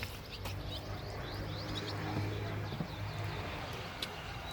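Small birds chirping: a run of quick, short, high chirps, each falling slightly in pitch, over a faint steady low hum.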